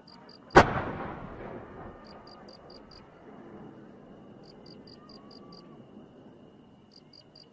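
A single loud firework bang about half a second in, echoing and dying away over the next second or so.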